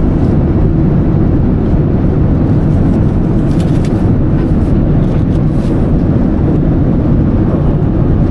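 Steady low drone of engine and airflow noise inside an airliner cabin, with a few faint rustles about halfway through.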